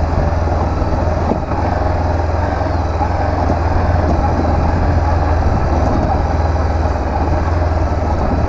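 Honda CB500X's parallel-twin engine running steadily while riding, mixed with a low, steady wind rumble on the helmet microphone.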